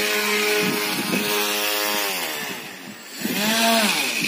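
Two 12-volt brushless (BLDC) thrust motors of a wire-hung model air train whining steadily, then winding down in pitch about halfway through; near the end they briefly rev up and fall away again.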